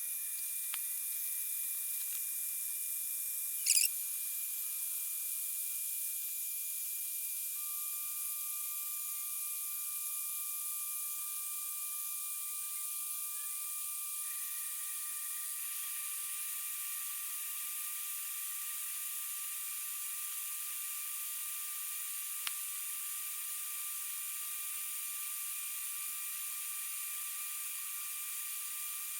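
Steady high-pitched electrical whine and hiss from a power inverter running a load of a humidifier and a small refrigerator. A short, loud rising chirp comes about four seconds in, and a single click a little past twenty seconds.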